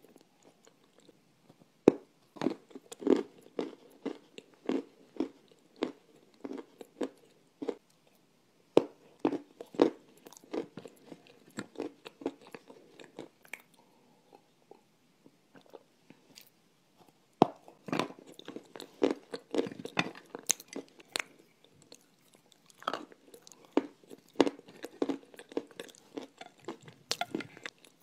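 A person biting and chewing crumbly pressed clay, recorded close to the microphone: quick runs of dry crunches and chews, with a quieter pause about halfway through before the crunching starts again.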